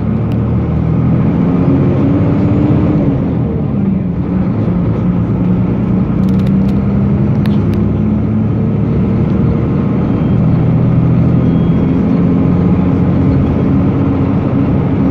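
Hino RG197K bus heard from inside the passenger cabin while driving: its engine runs steadily under road noise. The engine note climbs and drops back about three seconds in, then rises and falls again later.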